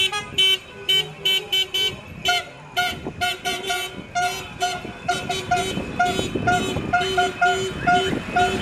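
Vehicle horns honking in a run of short repeated beeps, about three a second, with a higher-pitched horn giving way to a lower one about two seconds in.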